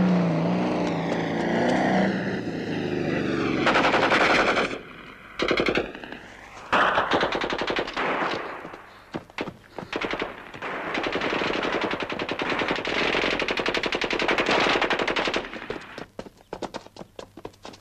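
A motorcycle-and-sidecar engine runs for the first couple of seconds. Then long bursts of rapid automatic gunfire start about four seconds in, broken by short pauses and thinning to scattered single shots near the end.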